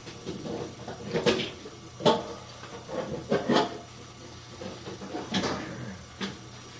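A handful of knocks and clunks of hard objects being moved and handled, about five separate hits with the loudest around one and two seconds in.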